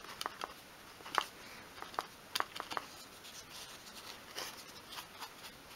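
Faint soft rubbing and scattered light clicks as a cotton pad wipes pastel chalk on a small wooden model door held in the hand.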